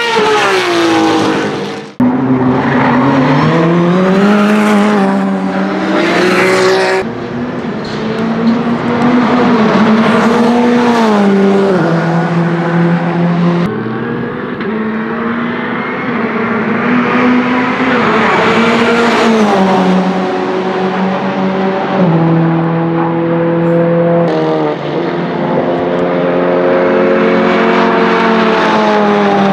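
Renault Megane TCR race car's turbocharged 1.8-litre four-cylinder pulling hard on track, its note climbing and then dropping in steps at each upshift, across several clips cut together. The first two seconds come from a different race car.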